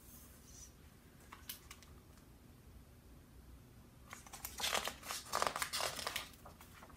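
Crinkling and rustling of a picture book being handled, starting about four seconds in and lasting a couple of seconds, after quiet room tone with a couple of faint clicks.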